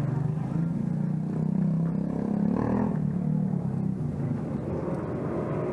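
A motor vehicle's engine running steadily close by, a low hum that swells a little about halfway through.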